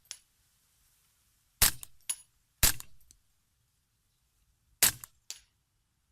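Three suppressed shots from a .22 rimfire Ruger 10/22 rifle fitted with a mini suppressor. The first two come about a second apart and the third about two seconds later. Each is followed about half a second later by a fainter second crack.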